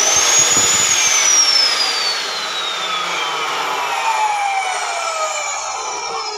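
Bosch GCO 220 abrasive cut-off saw run with no load. Its motor whines up to speed in the first second, then the whine falls steadily for the rest of the time as the motor and wheel coast down after being switched off.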